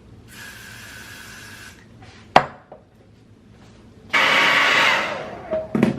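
A handheld hair dryer blowing in two short bursts, the second louder and fading out as it is switched off, with a sharp click between them.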